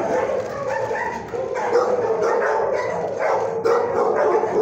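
Dogs barking and whining in an animal shelter's kennel block, one overlapping bark after another with no break.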